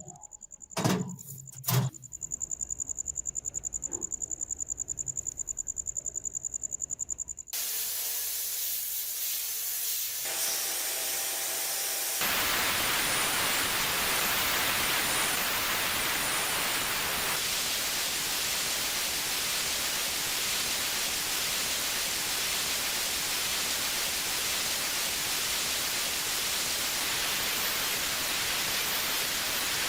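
A few knocks, then a steady high-pitched whine that pulses quickly and evenly, stopping about seven seconds in. After that comes a loud, steady hiss.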